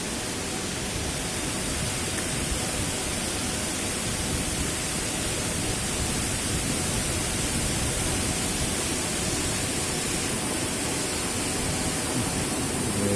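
Steady, even rush of a tall waterfall's falling water.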